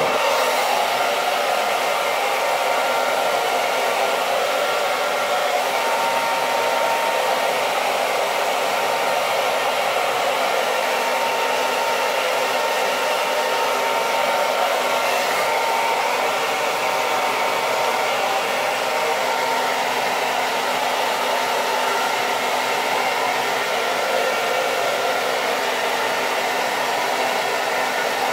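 Handheld hair dryer blowing steadily: an even rush of air with a faint steady whine.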